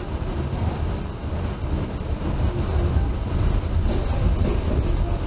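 New York City subway D train running along the track, a steady low rumble without distinct clacks.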